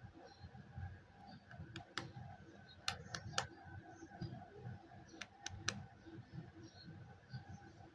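Candy packaging being handled: faint rustling with a scattered run of sharp clicks and taps, several close together in the middle.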